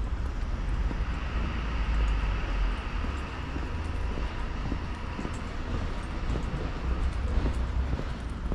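A train passing near the tracks, a steady low rumble with a rising and fading rushing whine in the middle.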